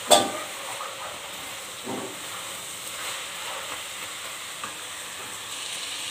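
Shredded cabbage sizzling in a frying pan with a steady hiss as a spatula stirs it. A sharp knock of the spatula on the pan comes right at the start, with a lighter one about two seconds in.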